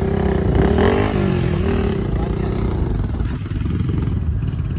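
Motorcycle engines running steadily while riding along.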